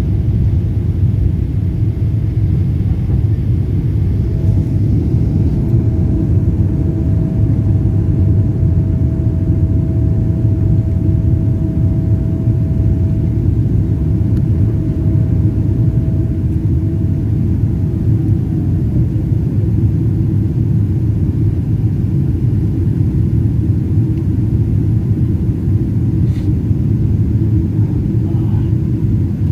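Steady low rumble of a Boeing 777-300 airliner's jet engines and airflow, heard inside the cabin. A faint steady whine runs alongside and slides down in pitch about two-thirds of the way through.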